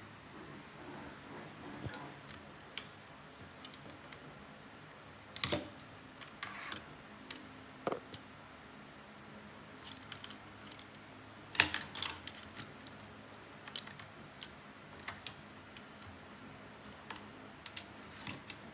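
Hard objects being handled by hand: scattered light clicks and taps at irregular intervals, with two louder knocks about five and a half and twelve seconds in.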